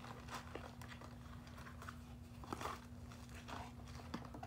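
Cardboard box and paper packaging being handled and rustled, with faint scattered clicks and crinkles over a steady low hum.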